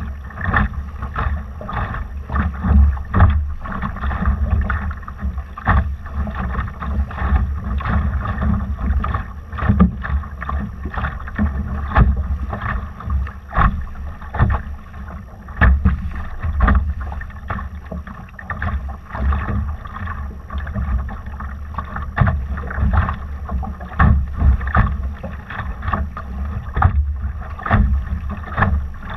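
Water slapping and splashing against the hull of a Laser sailing dinghy under way, in frequent irregular bursts, over a steady low rumble of wind buffeting the microphone.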